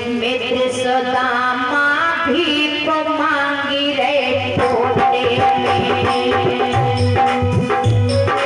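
Devotional music: a woman singing a slow, drawn-out melodic line. A tabla beat comes in about four seconds in and keeps going.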